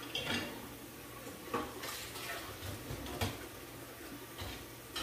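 Dishes being loaded into a dishwasher, knocking and clattering against the wire racks in a series of separate short clacks.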